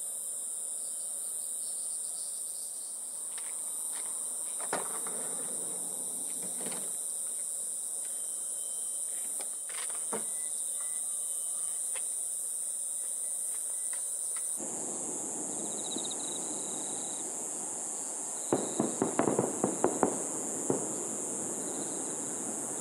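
A steady, high-pitched chorus of insects singing. About two-thirds of the way through the chorus changes, with short repeated chirps over it, and a quick cluster of light clicks and crackles follows.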